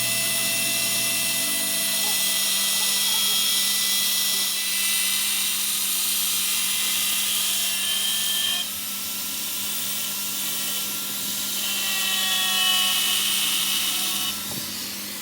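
A power tool running steadily with a high whine, working on a part of the hydraulic jack; it gets a little quieter about nine seconds in.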